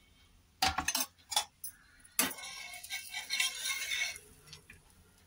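Metal utensils clicking a few times against a flat tava griddle, then a metal spatula scraping across the griddle for about two seconds as it is pushed under a toasting sandwich.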